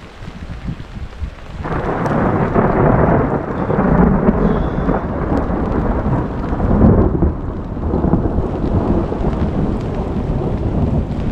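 Heavy rain falling in a thunderstorm; about a second and a half in, a long roll of thunder sets in and rumbles on, rising and falling.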